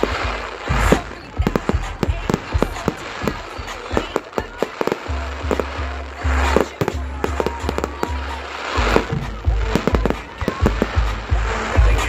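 Fireworks display: a rapid, irregular string of bangs and crackles from bursting aerial fireworks.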